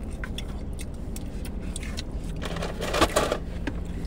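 Close-up eating sounds: small clicks and scrapes of a fork in a styrofoam container and chewing, over a steady low car-cabin hum, with one short louder throaty mouth noise about three seconds in.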